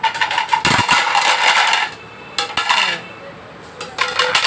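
Melamine dinner plates being set down one after another on a tiled floor, clattering against the tile and each other. A busy clatter comes about a second in, and shorter clicks follow twice later.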